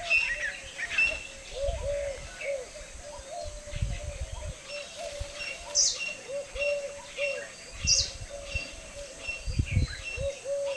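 Birds calling: a steady series of short, arched low notes, with higher chirps over them and two brief sharp calls in the middle. A few low rumbles come and go beneath.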